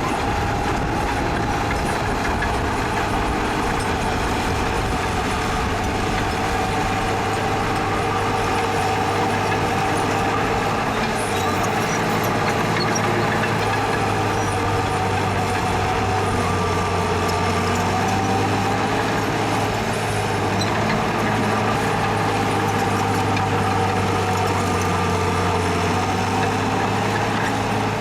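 Heavy diesel earthmoving machinery running steadily: a low engine drone with a steady whine above it.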